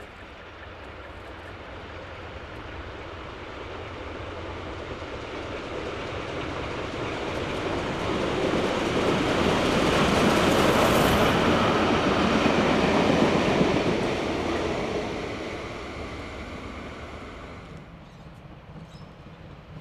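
Steam locomotive D3 639 and its carriages rolling past on the rails, the wheel and rail noise building to a peak about halfway, then fading. The sound drops away suddenly near the end.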